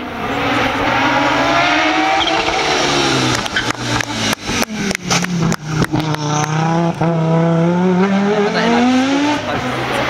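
Audi Quattro S1 rally car's turbocharged inline five-cylinder engine revving hard. In the middle the throttle snaps on and off with a quick run of sharp bangs. Then it accelerates with the pitch rising, breaks for a gearshift, and rises again near the end.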